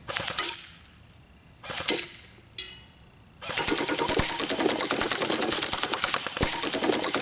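AR-style rifle firing rapidly: three short bursts in the first three seconds, then a long unbroken string of fast shots from about three and a half seconds in.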